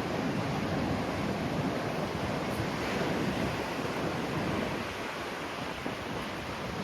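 Surf washing onto the shore mixed with strong wind buffeting the microphone: a steady rushing noise that eases slightly about five seconds in.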